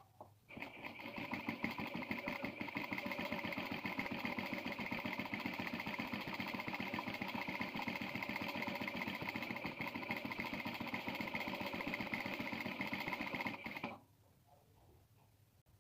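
Electric sewing machine running at a steady fast speed, a rapid even chatter of stitching. It starts about half a second in and stops abruptly near the end.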